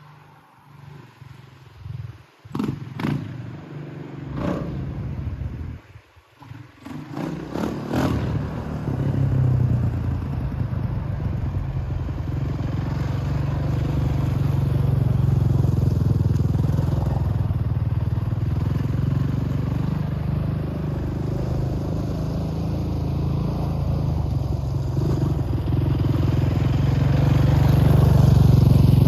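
A Honda TRX450 quad's single-cylinder four-stroke engine running steadily and growing louder toward the end. A few knocks and clatters come in the first several seconds, before the engine sound comes up about eight seconds in.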